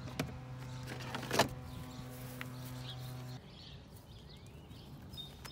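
Handling noise as a car's charging cable is lifted out of its trunk compartment: a few clicks and one thump, over a steady low hum that cuts off a little over three seconds in. After that, quiet outdoor ambience with a short bird chirp.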